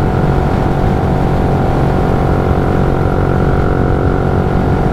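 Yamaha Y15ZR's freshly rebuilt 150 cc single-cylinder four-stroke engine running at a steady speed while the moped cruises, with rushing noise under the engine note.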